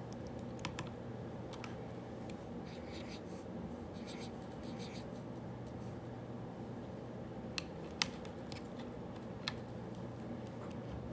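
Pen writing on paper in scratchy strokes over a steady low room hum, with a few sharp clicks, the loudest about eight seconds in.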